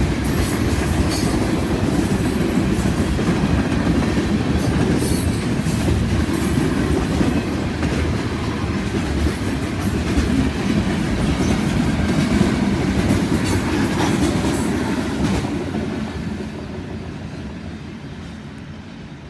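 Freight cars of a passing train rolling by with a steady rumble and clickety-clack of wheels over the rails, with brief high-pitched wheel squeals now and then. The sound fades away near the end as the last car passes.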